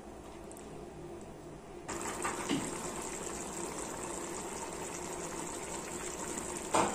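Pabda fish curry in yogurt gravy bubbling at a simmer in a pan, a steady bubbling hiss that starts suddenly about two seconds in. A brief knock comes in the middle, and a louder one just before the end.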